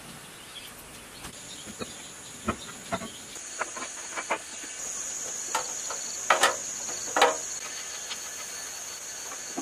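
Scattered light clicks and metal knocks of hand tools and the fan shroud being fitted onto a small air-cooled diesel engine, the loudest knocks a little over six and seven seconds in. A steady high-pitched insect drone runs behind them, starting about a second in and growing stronger about halfway.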